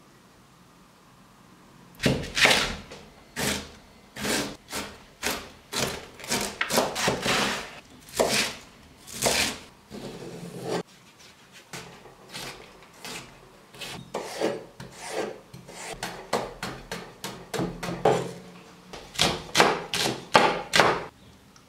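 Chef's knife slicing cucumber and chopping green onions on a wooden cutting board: a run of cuts at about two a second, starting about two seconds in.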